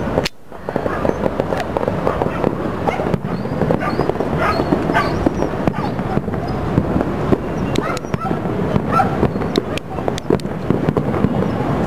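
Fireworks display going off continuously: a dense crackle and rumble, broken by many sharp bangs.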